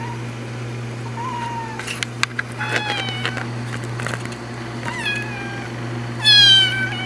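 A tabby kitten meowing: a series of short, high, downward-bending meows, about four, the loudest near the end.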